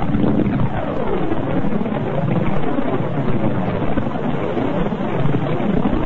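Cassini spacecraft recording from inside Saturn's rings, converted into audible sound: a steady, dense drone of many overlapping tones sweeping up and down.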